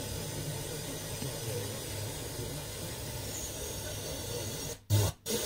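Steady hiss of FM static from a tuner on a weak, faded Sporadic-E signal, with no programme audible. Near the end the hiss cuts out and two short loud bursts follow as the tuner is retuned.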